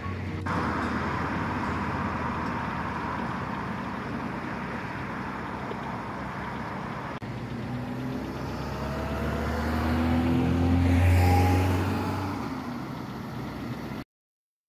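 A car passing on a road: over a steady background hiss, its engine swells and rises in pitch as it approaches, is loudest about eleven seconds in, then fades away. The sound cuts off abruptly near the end.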